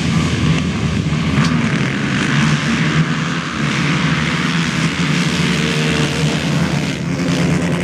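Several racing quad bike (ATV) engines running together at high revs, a loud, steady, overlapping drone.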